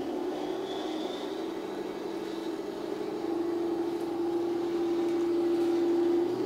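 Heng Long Tiger I RC tank driving slowly over rocks and turning: a steady mechanical whir that grows steadier and a little louder from about three seconds in.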